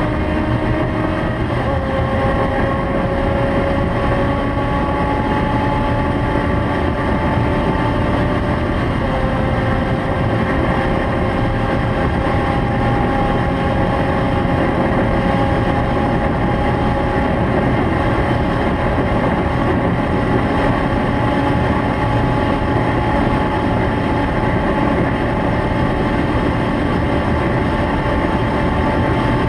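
Honda CBX 750F's air-cooled inline-four engine pulling hard on a high-speed run. Its pitch drops at a gear change about a second in and again about nine seconds in, then climbs slowly and steadily in the next gear, over a constant rush of noise.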